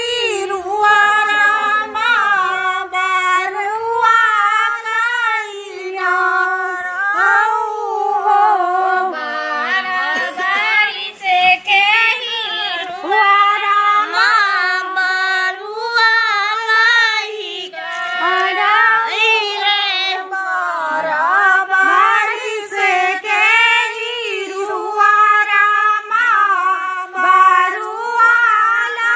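Women singing a Hindi folk song without instruments: one high melody line that wavers up and down, sung in phrases a few seconds long with short breaks between them.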